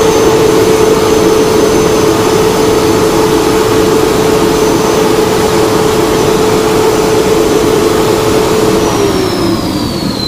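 Mahindra Blazo BS4 truck's diesel engine running at held high revs with a steady high whine, then the revs falling away near the end. Exhaust gas is leaking at the turbocharger, whose mounting bolts have broken, and the mechanic blames this leak for the low boost pressure that drops further when the engine is revved.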